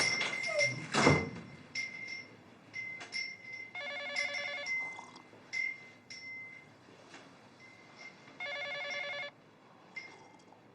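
Telephone ringing: two electronic rings, each just under a second long, about four and a half seconds apart, with faint clicks in between.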